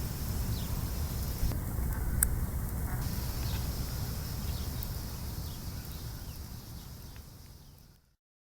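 Short, faint, high chirps from a small bird, scattered every second or so over a steady low rumble. The sound fades and stops about 8 seconds in.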